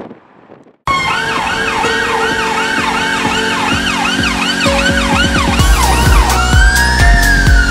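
UK police vehicle siren on yelp, fast rising-and-falling sweeps about three a second, cutting in suddenly about a second in; around six seconds in it switches to a slower wail, with a low rumble underneath.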